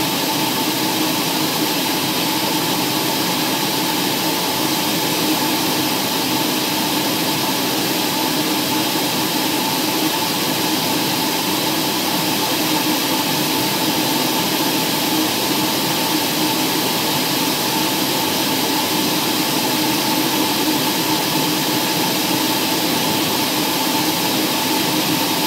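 Aircraft engine and airflow noise heard from inside the cabin in flight: a steady, unchanging drone with a few constant tones in it.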